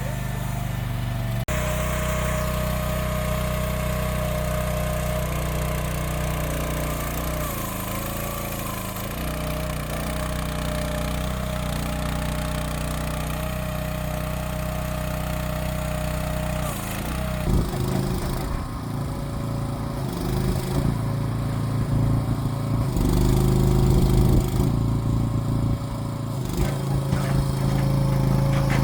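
Mini excavator's small diesel engine running. It idles steadily at first, then from about two-thirds of the way through it works unevenly, its note changing, with rattling and clatter.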